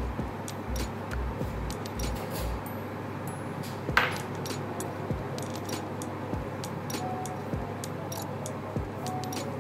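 Scattered light clicks and clinks of a spatula and utensils against the bowl, board and cake while frosting, with one sharper knock about four seconds in, over a low steady hum.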